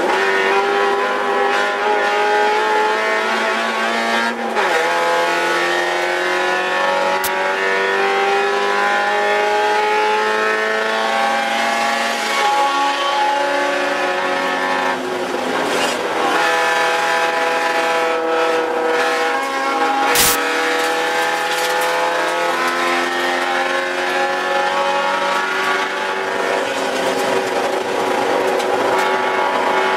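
Spec Miata's four-cylinder engine heard from inside the caged race car, pulling hard at racing speed: the pitch climbs steadily, then drops suddenly at an upshift about four seconds in and again around sixteen seconds. A single sharp knock sounds about twenty seconds in.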